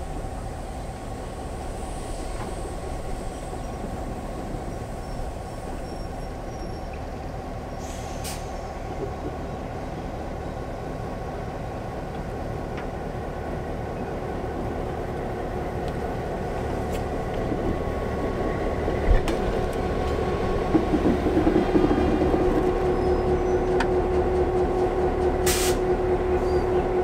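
DBR class diesel locomotive running at low speed while shunting flat wagons, its engine a steady hum that grows louder as it comes close and passes. Two brief sharp clicks, one about eight seconds in and one near the end.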